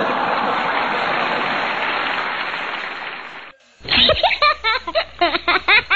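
Crowd cheering and applauding, cut off suddenly after about three and a half seconds. Then a short, loud burst of music with a quick, warbling melody over a low hum.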